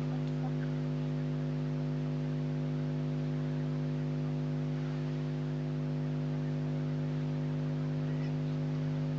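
Steady low electrical-sounding hum or buzz that does not change.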